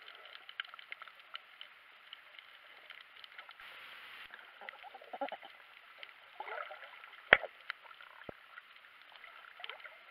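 Underwater sound picked up through an action camera's waterproof housing: a steady crackle of many small clicks, with some gurgling in the middle and one sharp knock about seven seconds in.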